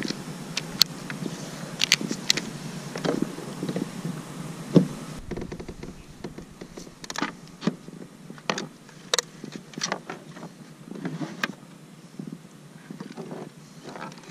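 Irregular clicks, knocks and rubbing of fishing gear being handled on a plastic kayak: rod and reel, lip gripper and landing net. A light steady hiss underneath cuts off suddenly about five seconds in.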